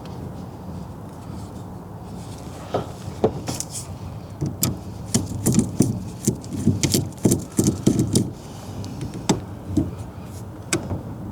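Light metallic clicks and clinks of small parts and hand tools being handled while a steering column is taken apart, irregular and coming in quick clusters from about three seconds in until near the end, over a steady low hum.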